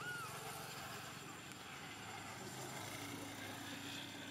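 A vehicle passing on the road, heard as a steady rush of noise. Two short high chirps come right at the start.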